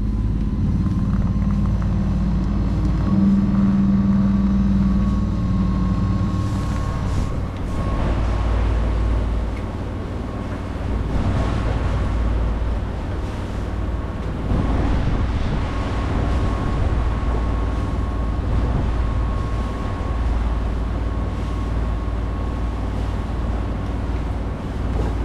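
A Volkswagen 140 hp marine diesel in a Jeanneau 57 sailing yacht running steadily under way at cruising revs, about 1,800 RPM.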